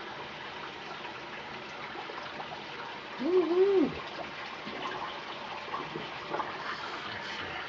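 Tap water running steadily into a sink. About three seconds in comes a short two-note hum from a man, like an "mm-hmm", the loudest sound.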